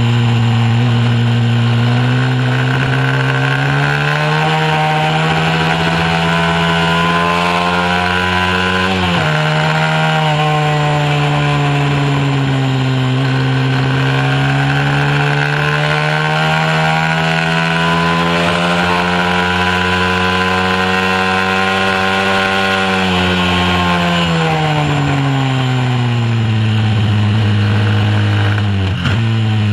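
A mini moto's small single-cylinder engine running hard at racing speed, heard from on the bike. Its pitch climbs and falls with the throttle, with a sudden drop about nine seconds in and a long fall a few seconds before the end.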